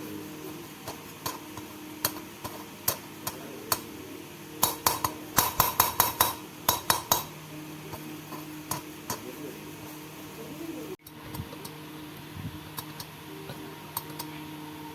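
Metal tools and engine parts clinking and tapping against each other during diesel cylinder-head work: scattered light clinks, with a quick run of about a dozen sharper taps between about five and seven seconds in.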